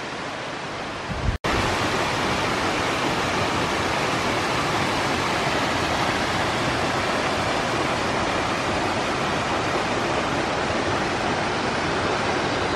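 Rushing water of a rocky mountain creek and its small cascades, a steady hiss. About a second and a half in there is a momentary break, and after it the rush is a little louder.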